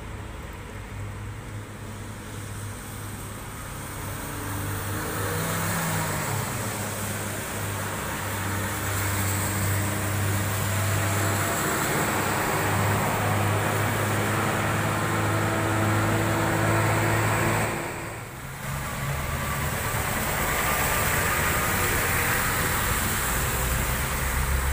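Heavy diesel trucks labouring uphill, engines droning steadily and growing louder as they come close, with tyres hissing on the rain-soaked road.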